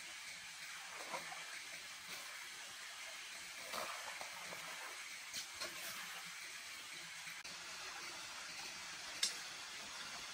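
Steady hiss of a small forest stream running over rocks, with a few light clicks and knocks of someone moving about on the stones and leaf litter; the sharpest click comes about nine seconds in.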